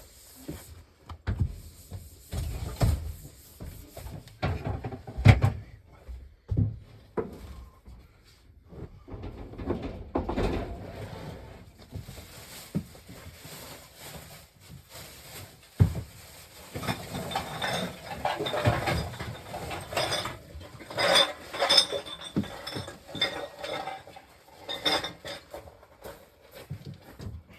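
Irregular knocks, clinks and rustling of things being handled and set down, with a sharp knock about sixteen seconds in.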